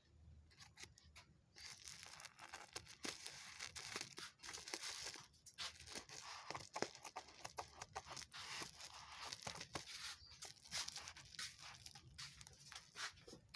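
Packaging being torn open and crinkled by hand: a dense rustle with many sharp clicks, starting about a second and a half in.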